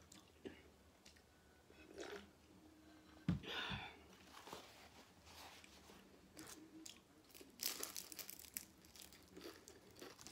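A soup bowl is set down on the table with a thump about three seconds in. Then come crunchy bites and chewing of a fried egg roll, with the crunching loudest about eight seconds in.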